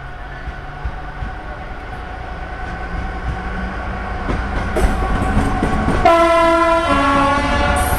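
A train passes with a rumble that builds, and a few clicks from the wheels on the rails. About six seconds in, it sounds a two-tone horn: a high note, then a lower one, ending shortly before the close.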